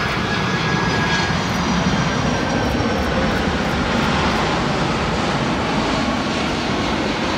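Boeing 747 passing low on landing approach: a loud, steady jet-engine rush with a faint high whine in the first second or so.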